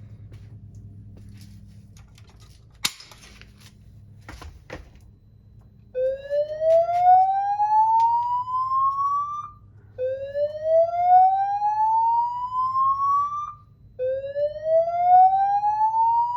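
Voice-evacuation fire alarm speaker sounding the slow whoop signal: three loud rising sweeps, each about three and a half seconds long, repeating every four seconds from about six seconds in. Before the whoops come a low hum and two sharp clicks about three and four and a half seconds in, the first with a brief hiss.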